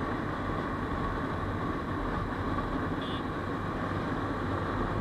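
Motorcycle cruising at about 70–75 km/h: steady wind rush and road noise on the bike-mounted microphone, with the engine running underneath.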